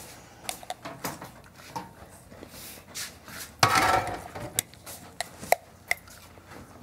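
Kitchen clatter: dishes, utensils and containers knocked and set down on a counter, in a run of scattered sharp clicks and knocks, with a louder burst of noise about three and a half seconds in.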